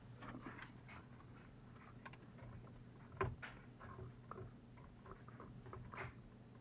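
Faint, scattered clicks and light handling noises as hands work on parts and wiring, with one sharper click about three seconds in, over a low steady hum.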